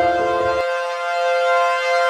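Civil defense siren sounding a steady, multi-tone chord. Lower sounds beneath it stop abruptly about half a second in, leaving the siren alone.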